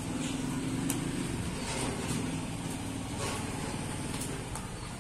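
A motor vehicle engine running, a steady low hum that is strongest in the first few seconds, over outdoor traffic noise.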